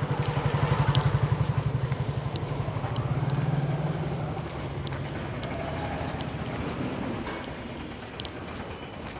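A vehicle engine running with a fast, even pulse as it travels. It is loudest over the first four seconds and then eases off, with short high ticks scattered over it.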